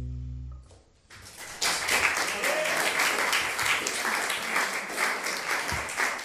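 A held low note on a bowed double bass stops under a second in. After a brief silence, audience applause breaks out and carries on steadily.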